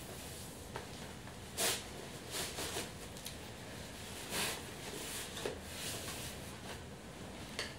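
Soft rustling of a fabric drawstring dust bag being handled and opened, with a few brief swishes as the cloth is pulled back from a leather handbag.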